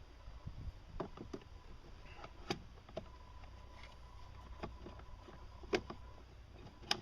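Scattered small clicks and knocks of hardware being handled and fitted by hand: bolts, nuts and plastic mounting parts worked into a tight space, with a louder knock just before six seconds in and another near the end.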